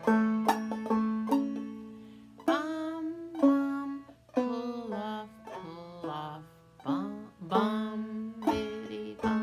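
Clawhammer banjo played slowly, picking out a melody phrase note by note. Several notes slide up in pitch, and the notes ring out between strokes.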